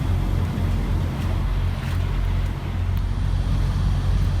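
Semi truck's diesel engine idling steadily with a low, even hum.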